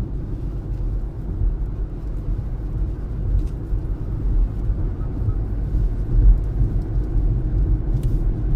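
Steady low rumble of a car's engine and tyres, heard from inside the cabin while driving on the highway.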